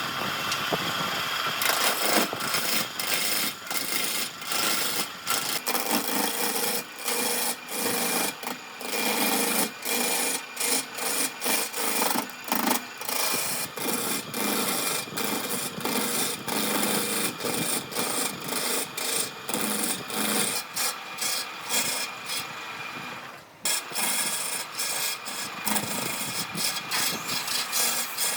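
A hand tool rubbing back and forth on wood in steady strokes, about one or two a second, with a short break near the end: sanding, rasping or hand-sawing work on the carved tabletop.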